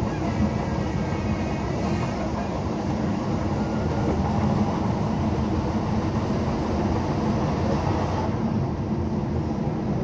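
Docklands Light Railway train running along the track, heard from inside the car: a steady rumble of wheels and running gear.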